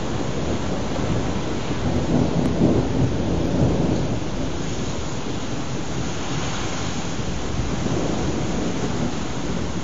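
Thunder rumbling over a steady hiss of rain, picked up by a webcam microphone. The rumble is heaviest for the first few seconds, then eases back toward the rain.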